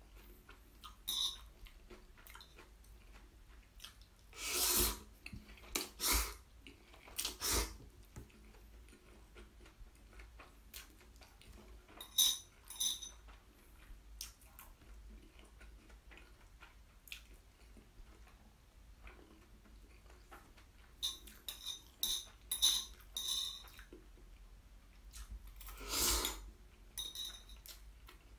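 Metal chopsticks clicking and scraping against a ceramic plate, picking up the last bits of black bean noodles, with chewing in between. Clicks come in clusters, and a few louder, longer sounds stand out about five seconds in and near the end.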